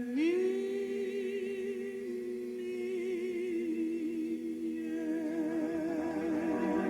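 A singer sliding up into one long wordless held note with a widening vibrato, over a steady instrumental accompaniment; another melodic line comes in near the end.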